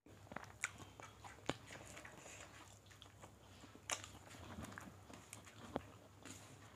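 Faint eating sounds of people eating rice and chicken curry with their hands: chewing and mouth smacking, with a few sharp clicks spread through.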